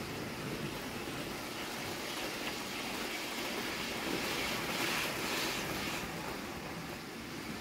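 Hornby OO-gauge Class 390 Pendolino model train running on its track: a steady noise of motor and wheels on rail, growing louder for a few seconds in the middle.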